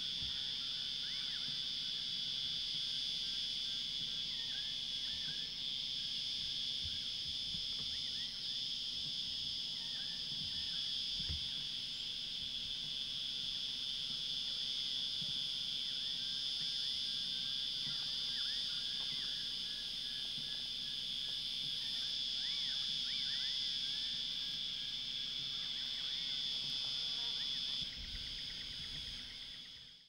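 A steady, high-pitched chorus of insects such as cicadas or crickets, with faint short chirps scattered through it. It fades out in the last couple of seconds.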